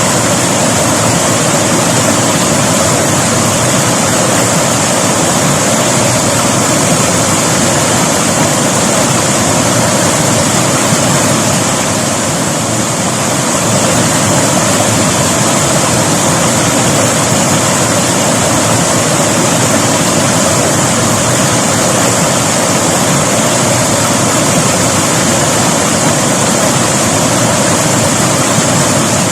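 River water flowing in a steady, loud rush.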